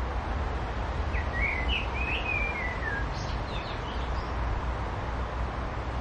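A songbird sings a short warbled phrase about a second in, ending in a falling run, followed by a few higher, thinner notes. Underneath is a steady low rumble and hiss of outdoor background noise.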